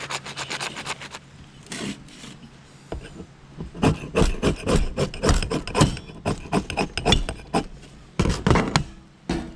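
Magnesium fire-starter block being scraped in quick rasping strokes, shaving off magnesium chips as tinder. A long run of strokes fills the middle, and two louder strokes come near the end.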